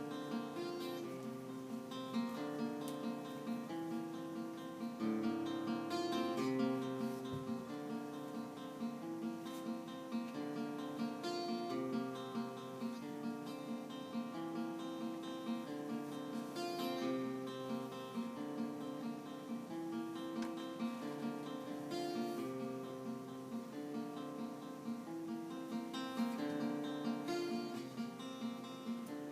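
Acoustic guitar music: plucked and strummed steel-free flamenco-style playing with a steady, repeating pattern of notes.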